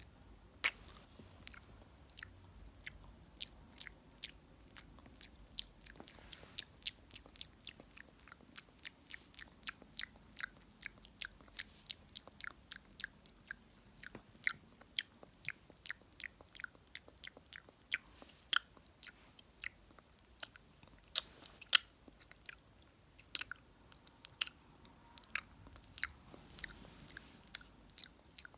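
Close-miked wet mouth sounds: kisses, lip smacks and tongue clicks in a quick, uneven patter of sharp little clicks, several a second.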